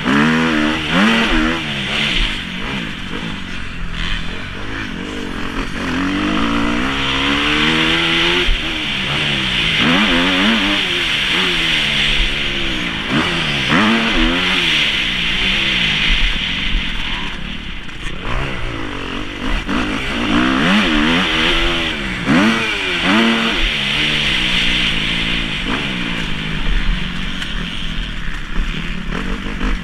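Kawasaki KX250F motocross bike's single-cylinder four-stroke engine, heard from onboard, revving up and dropping back over and over as the throttle is opened and closed around the track, over a steady rushing hiss.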